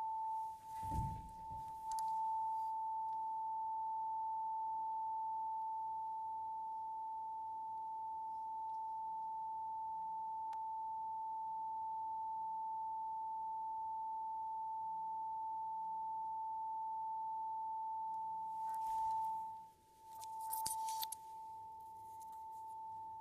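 Steady 885 Hz sine tone from a function-generator-driven loudspeaker sounding into a perspex resonance tube. Brief rustling and a knock from hands at the apparatus come about a second in, and more rustling and clicks come around twenty seconds in.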